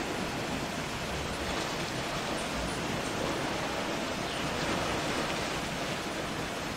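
Steady, even rush of sea water washing against a rocky shore.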